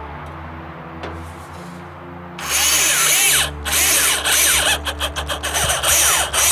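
Cordless drill driving a self-tapping sheet-metal screw into galvanized steel stove pipe. It runs loud in several bursts with short stops, starting about two and a half seconds in.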